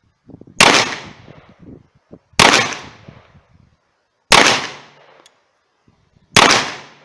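Four shots from a CZ 75 BD Police 9×19 mm pistol, about two seconds apart, each trailing off in a short echo.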